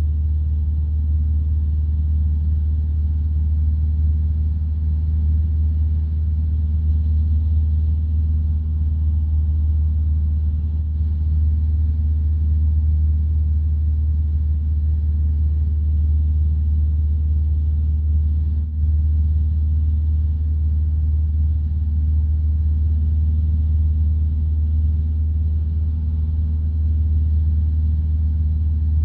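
Van's RV-12 light aircraft's Rotax 912 engine and propeller droning steadily in flight, heard inside the cockpit. There is a momentary dip in the drone about two-thirds of the way through.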